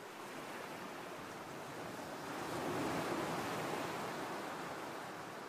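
Ocean surf washing onto a beach: a steady rush of noise that swells about halfway through and then slowly fades.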